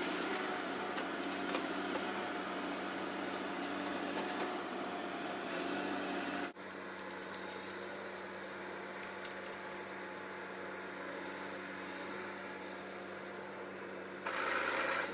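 Steady drone of biomass-harvesting machinery running. The sound changes abruptly about six and a half seconds in and goes a little quieter, and it grows louder and rougher briefly near the end.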